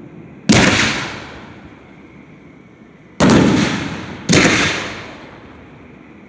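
Aerial fireworks shells bursting overhead: three loud booms, one about half a second in, then two close together around three and four seconds in, each trailing off over about a second.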